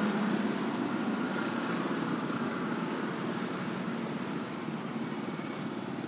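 Street traffic: motor scooters and cars running past, a nearer engine loudest at the start and fading away.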